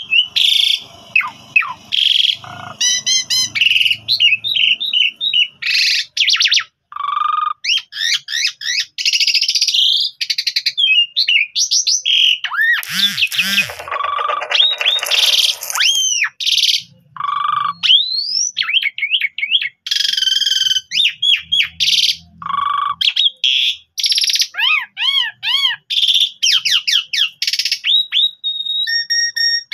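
A pied starling (jalak suren) singing a long, varied song with hardly a pause: quick rising and falling whistles, rapid repeated notes and harsh chattering bursts.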